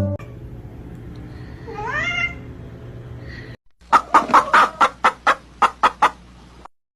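Animal calls: one rising call about two seconds in, then a quick run of about ten short, sharp calls over a couple of seconds, over a low steady hum.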